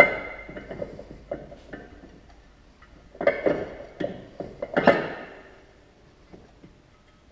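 Metal clanks and clinks as a Can-Am Maverick X3's secondary clutch is fitted onto its shaft by hand. A sharp knock comes at the start, then a few light ticks, then a cluster of ringing clanks about three to five seconds in.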